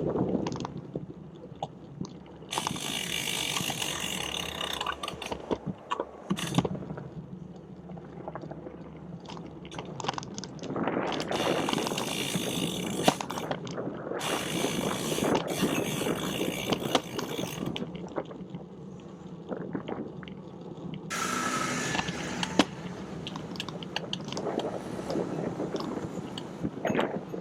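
Bicycle on the move: rapid ticking of the freewheel ratchet and drivetrain over a steady road rumble, with loud rushes of wind hiss on the microphone that come and go several times.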